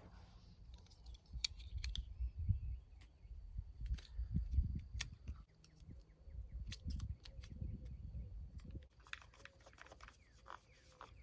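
Oakley sunglasses being handled as the original lenses are fitted back into the frame: scattered small plastic clicks and snaps over low, uneven handling rumble.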